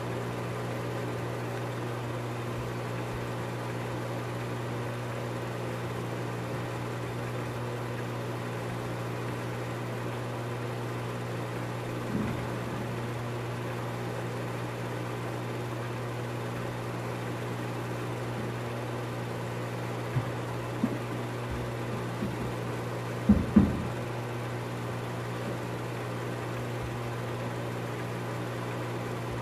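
Film projector running with a steady motor-and-fan hum. A few short knocks break in late on, the loudest two in quick succession.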